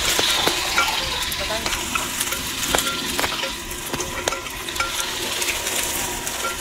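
Meat sizzling in hot oil in a metal cooking pot while a ladle stirs it, with scattered sharp knocks and scrapes of the ladle against the pot.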